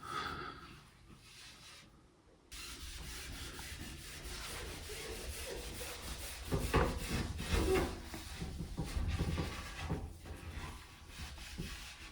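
Damp cloth rubbing back and forth on the shower door, wiping off loosened residue where the seal sat. The rubbing comes in uneven strokes, cuts out briefly about two seconds in, and is loudest in the middle.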